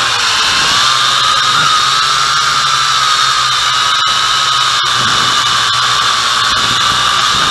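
MJX X101 quadcopter's motors and propellers whining steadily in flight, heard close up through the camera mounted on the drone, the pitch rising and falling slightly with the throttle. There is a steady hiss under it and two very brief dropouts about four and five seconds in.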